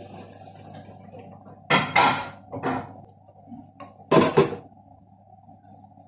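Metal pots and lids clattering: sharp clinks and knocks in two clusters, about two seconds in and again about four seconds in, over a faint steady hum.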